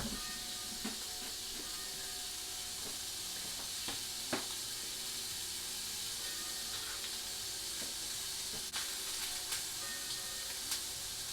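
Fillet steak sizzling in a hot frying pan, a steady hiss with a few sharp clicks and pops. Church bells ring in the background.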